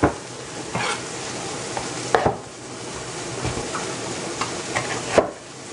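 Meatballs sizzling in a frying pan, with a few sharp knocks of a utensil against the pan, the loudest about five seconds in.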